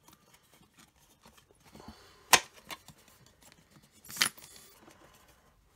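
Hard plastic toy parts clicking and knocking as a bellows noise unit is pressed down into a plastic body shell: a sharp click a little over two seconds in, a softer one just after, and another knock about four seconds in, with faint handling between.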